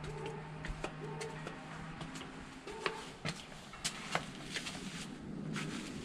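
Footsteps and light scuffs of a person climbing porch steps, heard as scattered short clicks.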